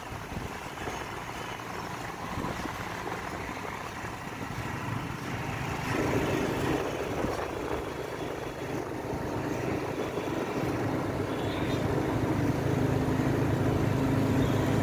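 Motorbike engine running while riding along a road, with wind rushing over the microphone. The engine hum comes in more strongly about six seconds in and grows gradually louder toward the end.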